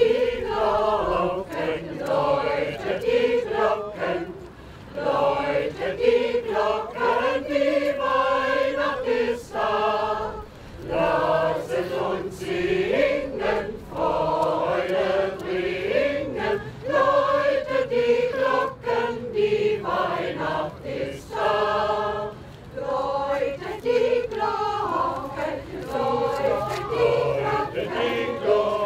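Large mixed choir of men's and women's voices singing a song unaccompanied, in long phrases with short breaks for breath between them.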